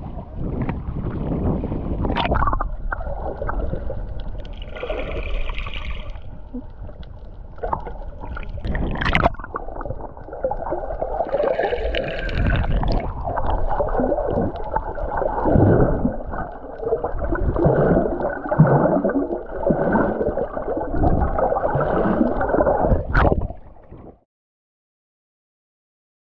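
Muffled sloshing and gurgling of sea water around a snorkeller's camera, partly under water, with a few sharp knocks. It cuts off suddenly near the end.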